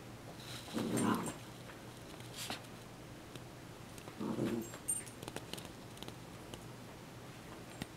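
Puppy giving two short, rough growls, about a second in and again just past four seconds, with small clicks and scratches from chewing and pawing at a chew toy.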